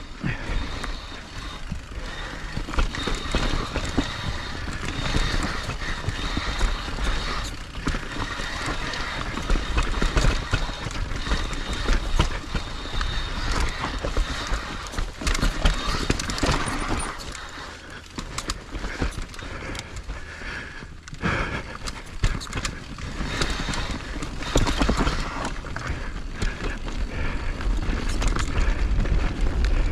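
Skiing down a groomed slope: edges scraping and carving on the snow in uneven surges, with wind rumbling on the microphone.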